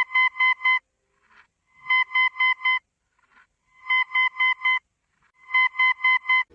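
Electronic emergency alert beep tone: quick groups of four short, high beeps, repeating about every two seconds, four groups in all.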